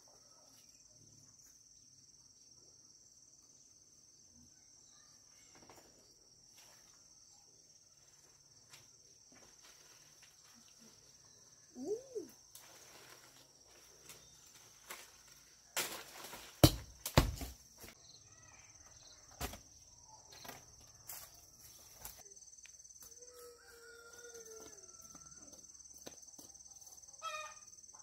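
Insects droning steadily at a high pitch, with a cluster of sharp knocks and thumps about two-thirds of the way through, the loudest sounds here. Now and then a short bird call.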